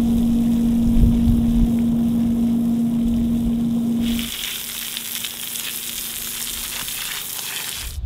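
Pressure washer running with a steady hum while its jet sprays a freshly cut concrete slab. About four seconds in the hum drops away, and the hiss and splash of the jet striking the concrete is loudest.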